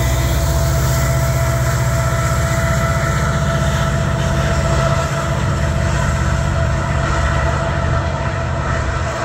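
A set of EMD SD70ACE diesel-electric locomotives working hard upgrade: the deep, steady drone of their two-stroke prime movers with a steady high whine over it, mixed with the rumble of wheels on the rails. The sound eases a little about halfway through.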